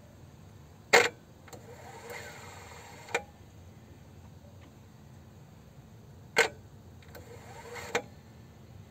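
Electric air-conditioning compressor of a Hyundai Ioniq, heard twice starting and stopping: each time a sharp click, then a short whine that sweeps in pitch for under two seconds and ends with a smaller click.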